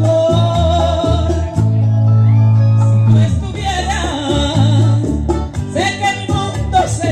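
A woman singing a Spanish-language ballad into a microphone over a karaoke backing track. The voice drops out for a couple of seconds near the middle while the backing music carries on, then comes back in.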